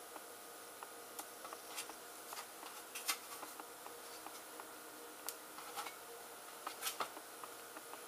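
Faint scattered taps and clicks as slices of pinwheel cookie dough are laid on a cookie sheet, the sharpest about three seconds in and a few more near the end, over a faint steady hum.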